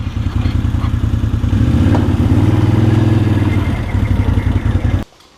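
ATV engine running under way, its pitch and loudness rising a little through the middle and easing again, then cutting off suddenly near the end.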